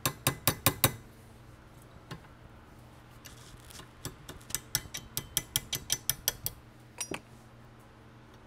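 Light metal-on-metal taps, a small hammer tapping a pin out of a Krag-Jørgensen rifle's receiver at the trigger. A quick run of about six taps comes first, then a longer run of about five taps a second from about four seconds in, then two more.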